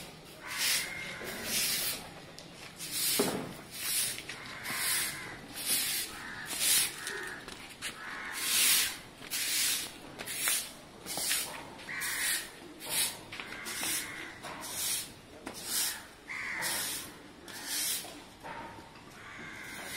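Short-handled grass broom sweeping a concrete yard, its bristles swishing and scraping over leaves and grit in quick repeated strokes, about one to two a second.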